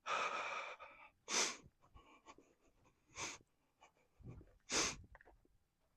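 A person breathing hard close to the microphone: a long breathy exhale at the start, then three sharp breaths about a second and a half apart.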